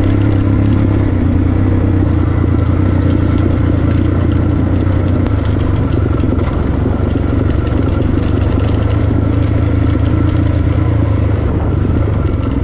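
Motorcycle engine running steadily at an even speed.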